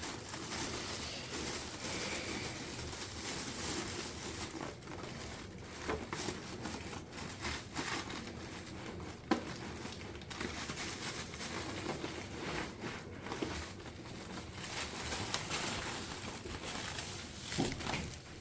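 Rustling and crinkling of packaging being handled while a gaming PC case is opened, with scattered small clicks and knocks and one sharper click about halfway through.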